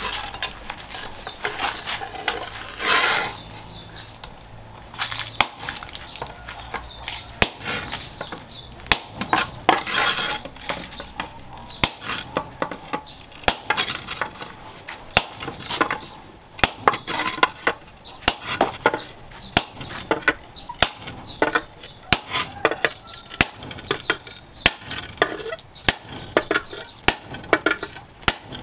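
Hammer blows on a hot-cut chisel driven into a red-hot steel tractor disc on an anvil, cutting the disc. The strikes come as sharp, ringing metal clanks, a few at first, then a steady run of roughly two a second from about halfway.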